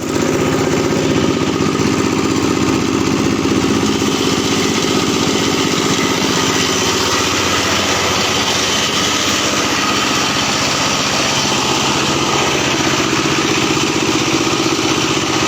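Corn-cracking machine running steadily under its small engine, a constant, even mechanical drone.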